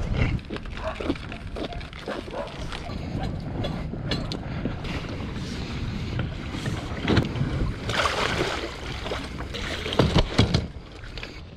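A Solo Skiff rolling down a concrete boat ramp on its balloon sand-tire cart, with irregular knocks and rattles from the hull and the rods and gear aboard. Louder clunks come about two-thirds of the way in and near the end.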